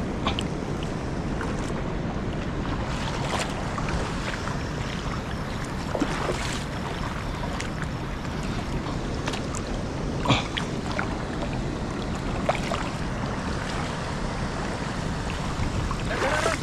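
Steady rush of shallow moving water, with a few small splashes and knocks now and then as someone wades through it.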